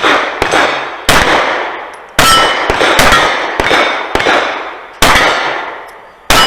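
Sig P320 Carry pistol firing a string of shots at an uneven pace of roughly one a second, with steel target plates ringing with a clang on the hits.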